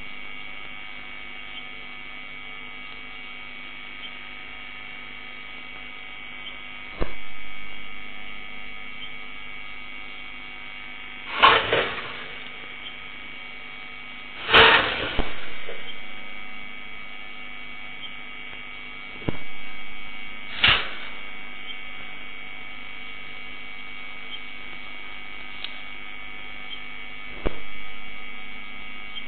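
Steady electrical hum made of several fixed tones, with six sharp knocks or clicks at irregular intervals. The loudest come about a third and halfway through, in quick double strikes.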